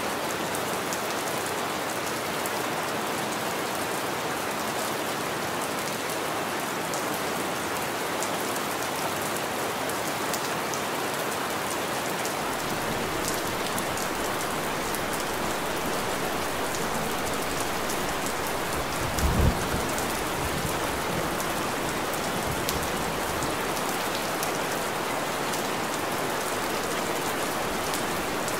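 Steady rain falling and pattering on surfaces, with one brief low rumble about two-thirds of the way through.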